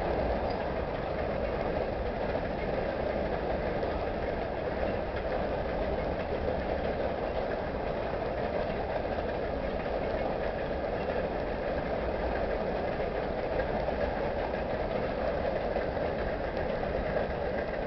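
Freight cars of a manifest train rolling over a bridge: a steady rumble of steel wheels on rail.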